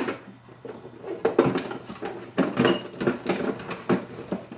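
Irregular clinks, knocks and rattles of tools and metal bits being handled and packed into a tool bag, one clink ringing briefly.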